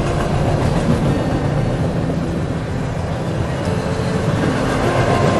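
Freight train cars rolling steadily past on the rails, a continuous low-heavy noise of wheels and cars.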